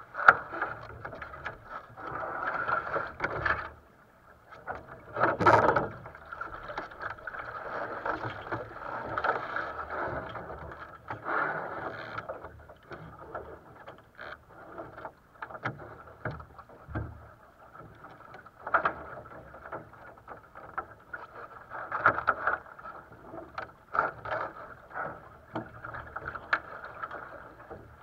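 Water rushing and splashing along a small sailboat's hull as it sails through light chop, heard muffled, with scattered knocks on the boat and a louder thump about five and a half seconds in.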